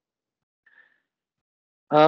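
Near silence: a pause in speech, with one faint brief sound about two-thirds of a second in. A voice starts again right at the end.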